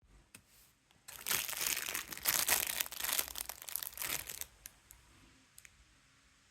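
Crinkling and rustling handling noise that starts about a second in and lasts a little over three seconds, followed by a few faint clicks.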